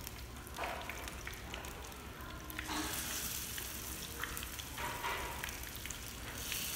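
Hot oil sizzling steadily around chả cuốn (Vietnamese meat rolls) frying in a small pan. The sizzle swells louder about three seconds in and again near five seconds as rolls are moved and added with chopsticks, with light clicks of the chopsticks.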